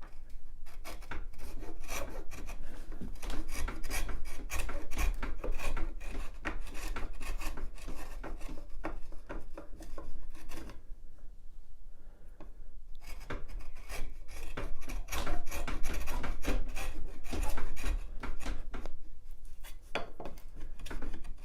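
Sharp chisel paring across pallet wood by hand: rapid runs of short scraping strokes shaving the surface down to a line, with brief pauses about halfway through and near the end.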